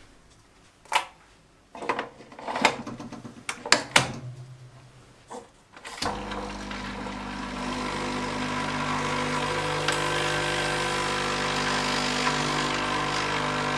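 A few clicks and knocks as a Dolce Gusto capsule coffee machine is handled and set up, then, about six seconds in, its lever is pressed and the pump starts with a steady mechanical hum as coffee runs into the cup.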